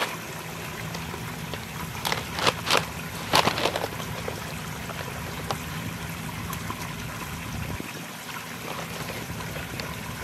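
Steady splashing and trickling of water spilling into a garden pond from its inflow. A few sharp, louder sounds come about two to four seconds in.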